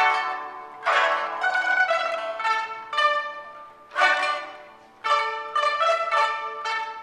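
Pipa ensemble playing: plucked notes that ring and die away, with a full strummed chord about a second in and another about four seconds in, a short lull, then a quick run of plucked notes.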